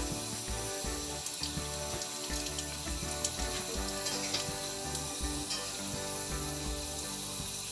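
Tap water running and splashing over hands rinsing shelled freshwater mussel meat, a steady hiss with a few small clicks from handling, over background music with a steady beat.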